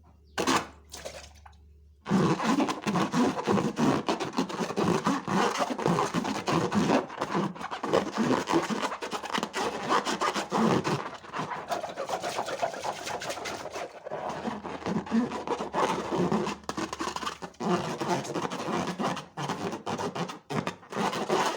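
Wet slime being squished and worked by hand: a continuous squelching full of small sticky pops and clicks, starting about two seconds in after a brief short sound.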